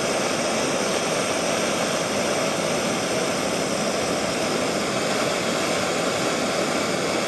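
Gas torch burning steadily with an even rushing noise, heating a hardened steel tool to a blue tempering colour.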